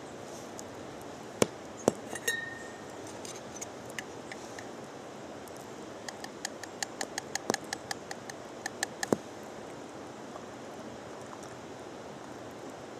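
Light metallic clinks and taps from a stainless hand coffee grinder being handled, one with a short ring about two seconds in, then a quick run of small clicks, about four a second, for a few seconds in the middle. A faint steady hiss lies beneath.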